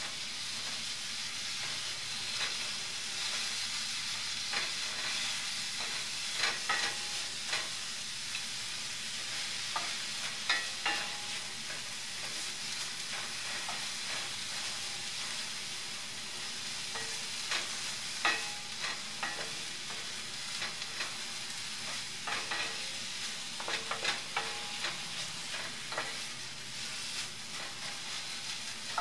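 Sliced red onions sizzling in coconut oil in a skillet while a wooden spatula stirs them: a steady frying hiss, broken by clusters of short scraping clicks as the spatula pushes through the onions and against the pan.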